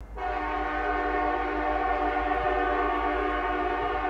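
Air horn of an approaching CN SD70M diesel locomotive sounding one long, steady multi-note chord.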